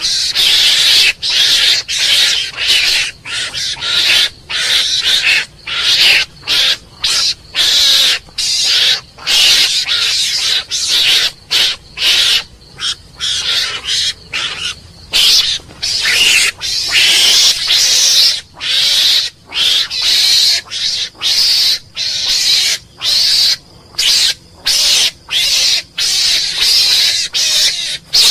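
Mongoose calls: a long run of short, harsh, noisy calls in quick succession, about one and a half a second, with brief gaps between them.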